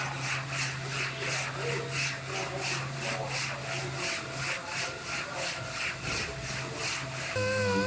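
Hand sanding: rhythmic back-and-forth rubbing strokes, about three a second, over a steady low hum. The strokes stop shortly before the end.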